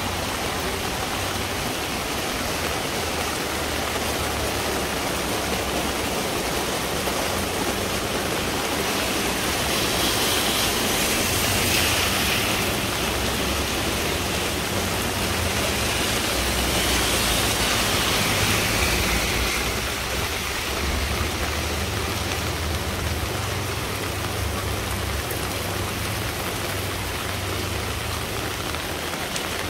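Steady rain falling, a dense hiss that swells louder twice around the middle, over a low steady rumble.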